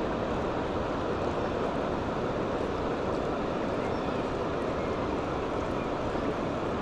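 Steady rush of river water flowing over rocks, an even noise with no breaks or separate events.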